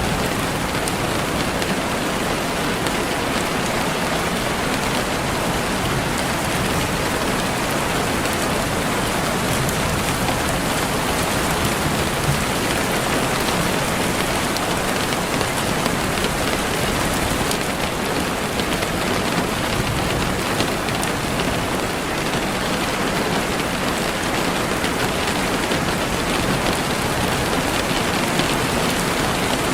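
Steady rain falling, a dense even hiss with a few faint drop ticks.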